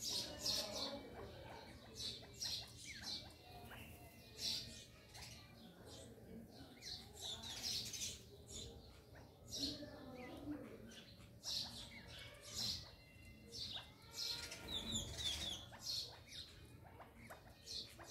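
Chukar partridge chicks peeping: short, high-pitched cheeps repeated irregularly, about one a second.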